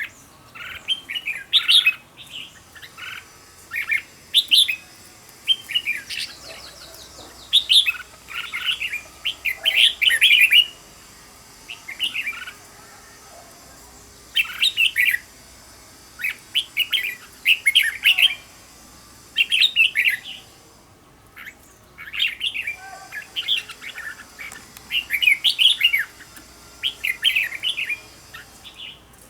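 Red-whiskered bulbul singing: short, quick warbled phrases repeated in clusters every second or two, with brief pauses between them.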